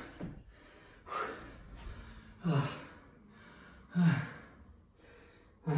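A man breathing hard to recover after a set of burpees: four heavy, partly voiced breaths, about one every second and a half, with quieter breathing between them.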